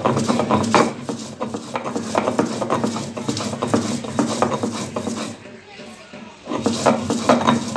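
Stone roller rubbed back and forth over a stone grinding slab (shil-nora), crushing fresh coriander leaves into chutney: a rhythmic gritty scraping at about two strokes a second. It stops for about a second around two-thirds of the way through, then starts again.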